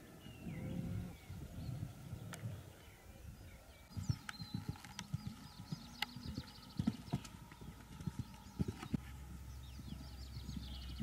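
An Irish Draught mare's hoofbeats on a sand arena. They are muffled, and settle into a quicker, regular cantering beat about four seconds in.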